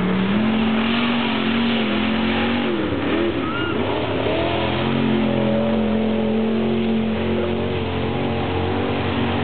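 Off-road 4x4 race vehicles' engines running hard and revving. About three seconds in, the pitch swoops and dips as a vehicle passes, then settles into a steady, high engine note.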